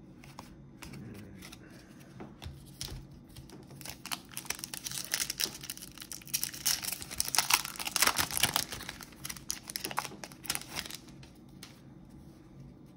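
Crinkling and crackling of a trading-card pack's plastic-foil wrapper being handled and torn open. The crackling grows dense through the middle and thins out near the end.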